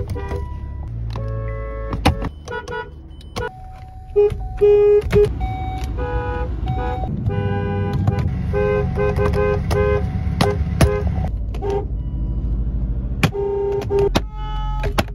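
Car horns of different pitches honking one after another, mostly short toots with a few quick runs of repeated beeps, over a low rumble.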